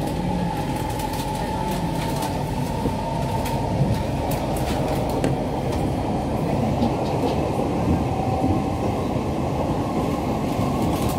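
Siemens C651 metro train running along the line, heard inside the passenger car: a steady rumble of wheels and running gear with scattered sharp clicks from the track.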